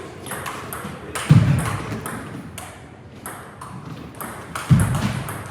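Table tennis balls clicking sharply off paddles and tables in quick, irregular succession, a busy hall of play. Two heavy low thuds stand out, one about a second in and one near the end.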